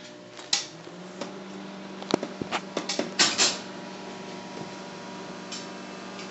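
Microwave oven running with a steady electrical hum that sets in about a second in, heating marshmallows. Several sharp clicks and light clatters come over it in the first three seconds or so.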